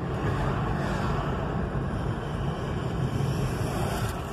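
Steady road and engine noise of a car driving at moderate speed, heard from inside the cabin.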